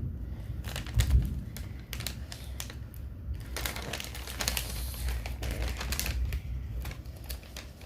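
Plastic packaging being handled and opened: rustling and crinkling with many scattered sharp clicks.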